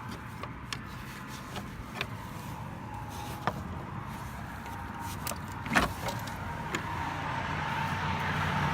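Road traffic on a busy street: a steady hum of passing vehicles that grows louder near the end as a vehicle approaches. A few sharp clicks sound over it, the loudest about six seconds in.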